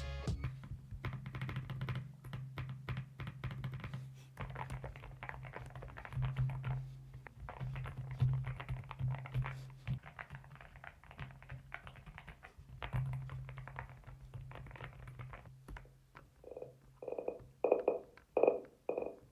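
Typing on a NuPhy mechanical keyboard: a fast, continuous clatter of key clicks, with background music underneath.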